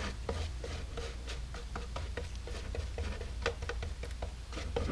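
A small epoxy brush dabbing and stroking fiberglass cloth into wet epoxy against the inside of a fiberglass cowl: irregular soft taps and scratches, several a second, over a low steady hum.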